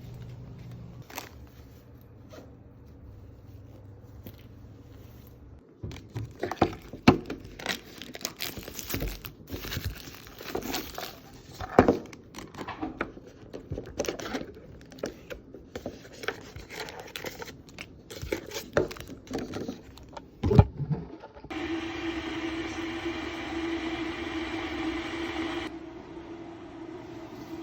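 Plastic packaging crinkling and tearing, mixed with sharp clicks and knocks of handling, for about fifteen seconds. Then a steady hum with one clear tone comes in and lasts about four seconds.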